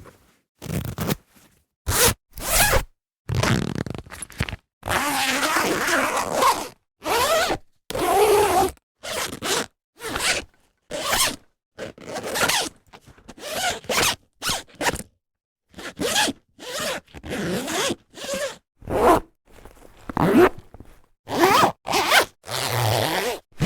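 Zippers being zipped open and closed again and again: a long run of separate zip strokes, mostly short pulls lasting well under a second, with a longer drawn-out run of about two seconds roughly five seconds in, and clean silence between strokes.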